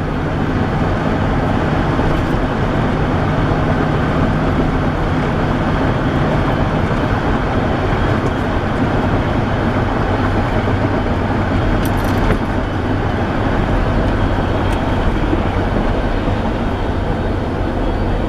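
Steady road rumble and noise of a car driving at speed, with a low engine drone under it.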